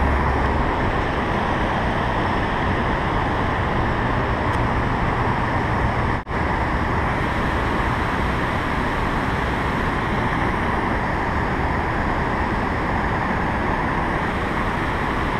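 Steady rushing roar of river water pouring over a dam spillway and churning in the whitewater below it, with a momentary dropout about six seconds in.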